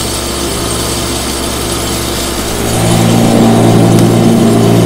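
Iseki TM3265 compact tractor's diesel engine running at raised revs, driving a Wessex CRX150 rear-mounted rotary mower through the PTO at 540 RPM with the blades spinning while parked. A steady engine hum that gets louder a little under three seconds in.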